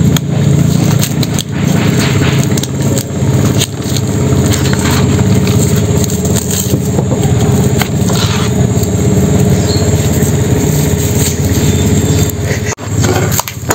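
Engine running steadily with a low, even drone, with a brief break near the end.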